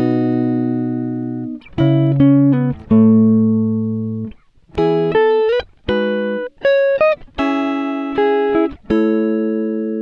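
Background music: plucked guitar chords, each struck and left to ring out, about one a second.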